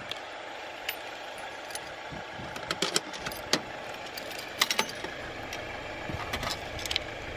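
Keys and the lock of a metal cluster mailbox, and its compartment doors, making a string of sharp metallic clicks and clanks, thickest in the middle, as mail is pulled from an open compartment. Steady outdoor background noise underneath.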